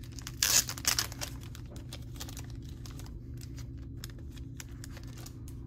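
Trading cards and plastic card sleeves being handled, rustling. Two louder rustles come about half a second and a second in, followed by a run of light clicks and taps.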